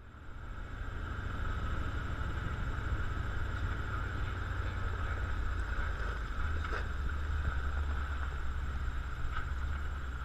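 Vintage Dodge Power Wagon truck running on a trail: a steady low engine rumble with a constant high whine over it, fading in at the start, and a couple of light knocks in the middle and near the end.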